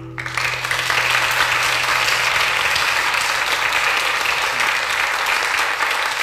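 Audience applause from a concert crowd, breaking out as the last acoustic guitar chord of the song dies away and then holding steady.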